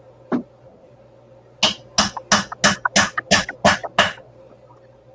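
Hammer striking metal on a jeweller's bench: one blow, then a steady run of eight quick sharp strikes, about three a second.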